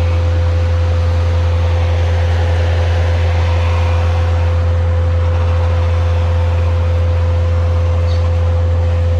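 Cat 299D3 skid steer and its mulching head running steadily, heard from the operator's seat: a loud, constant low drone with a steady whine above it.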